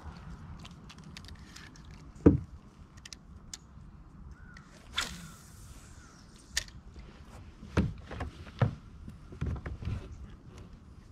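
Scattered knocks and clicks of fishing tackle and kayak handling while a bass is fought and reeled in on a bent rod. The sharpest knock comes about two seconds in, with a brief hiss about halfway and a cluster of knocks near the end.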